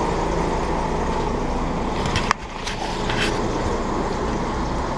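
Busy city-street ambience: a steady rumble of traffic and passers-by. About two seconds in, a sharp click and the sound drops abruptly, then the same street noise carries on.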